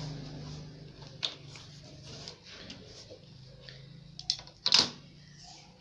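Plastic ruler and tape measure being handled on pattern paper over a wooden table: scattered light taps and clicks, with a louder knock just before the end, over a steady low background hum.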